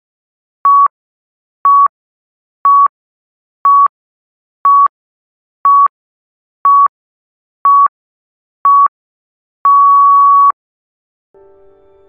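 Electronic countdown timer beeping: short beeps of a single pitch once a second, then one longer beep near the end marking the start of the timed session. Soft music comes in faintly just after.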